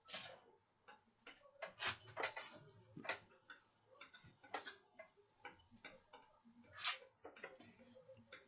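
Irregular clicks and taps from someone working at a computer, a dozen or more at uneven intervals, the loudest about two seconds in and about seven seconds in.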